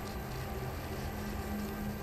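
Live electronic drone music: a steady held low tone over a dense, rumbling bass, without a clear beat.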